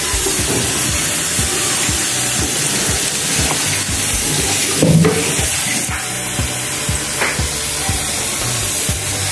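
Cooking oil heating and sizzling in an aluminium pot on a gas burner: a steady hiss with small crackles.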